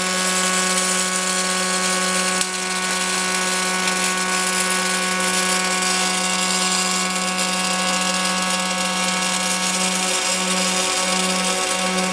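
Double-torch circumferential welding machine welding the seams of an LPG cylinder: two welding arcs hiss steadily over a constant electrical hum. About ten seconds in, the hum starts pulsing on and off.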